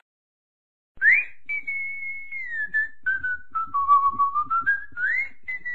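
A whistled tune: a single clear note that glides up and down through a short melody. It starts about a second in, after a moment of silence.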